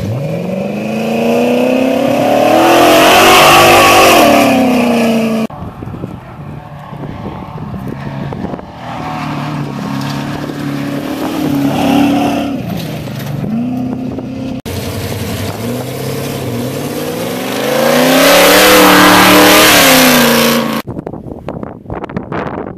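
Desert race trucks at speed: an engine revs up and sweeps close past, its pitch falling, then engines run at changing revs through the gears, then another close pass-by rises and falls about two-thirds of the way through.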